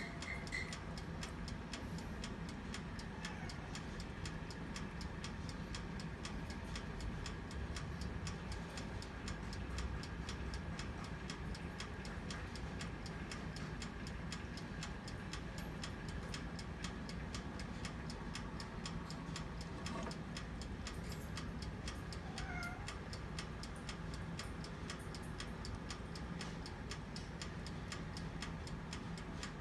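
Countertop rotisserie oven running, with a low steady hum and a fast, even mechanical ticking throughout. A cat meows faintly once near the start and again about two-thirds of the way through.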